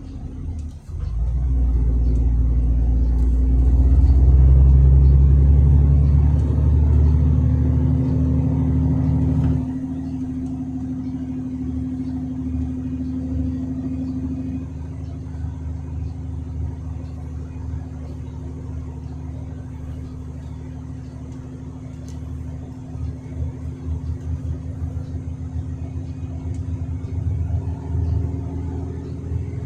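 Truck's diesel engine running under load: it pulls hard for the first several seconds, then eases off about ten seconds in and keeps running steadily and more quietly, with some uneven low rumbling near the end.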